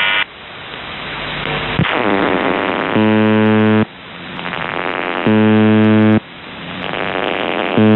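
UVB-76 'The Buzzer' shortwave station on 4625 kHz received over the air: after a few seconds of static and a click, its buzz tone comes back, sounding for just under a second about every two and a half seconds. Shortwave static swells between the buzzes.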